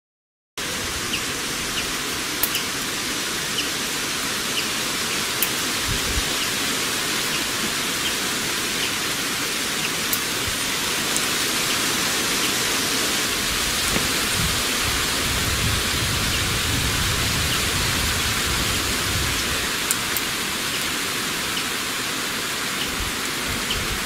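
Steady hiss of rain with scattered faint ticks and a low rumble about two-thirds of the way through. It starts abruptly out of silence just after the beginning.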